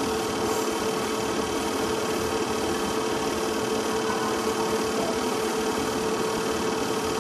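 Film projector running: a steady mechanical whirr with a constant hum.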